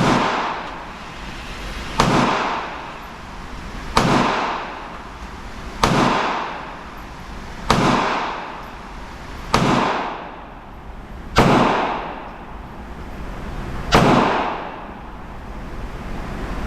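.22 rimfire single-action revolver shots, fired one at a time about every two seconds, eight in all, each sharp crack followed by a trailing echo.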